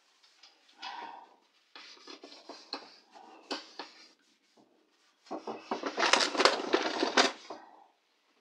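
Small screwdriver working at a guitar's truss rod cover on the headstock: scattered clicks and scrapes, with a plastic bag rustling at first. About five seconds in, the scraping and clicking grows louder and denser for a couple of seconds, then stops.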